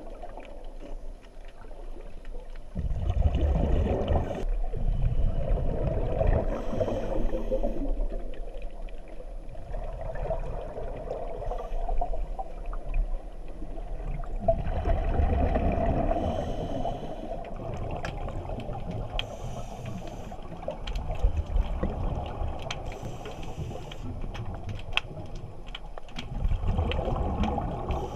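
Muffled underwater bubbling rumble heard through a camera housing, rising in bursts every several seconds as a scuba diver exhales through the regulator, with faint scattered crackling.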